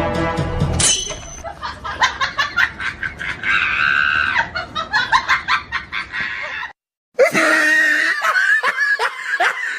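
Loud fits of rapid, rhythmic laughter, beginning with a brief shrill shriek about a second in. The laughter breaks off for half a second near the end, then resumes.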